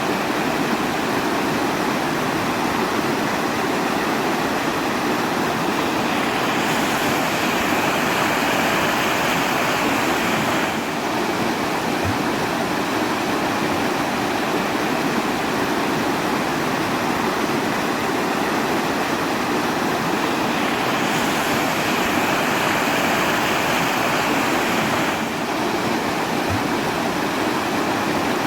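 Steady rushing water, a dense, even hiss. The hiss turns brighter for about four seconds twice, once about a quarter of the way in and again about three quarters in.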